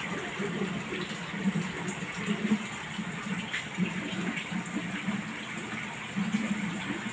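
Steady splashing and trickling of water pouring into an aquarium, as from a filter return churning the surface.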